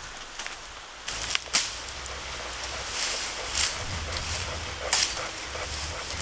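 Rustling and crackling in dry leaves and brush, with a few sharp snaps about a second apart.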